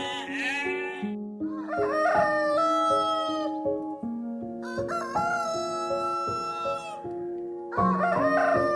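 A rooster crowing several times, each crow long and drawn out, over soft background piano music.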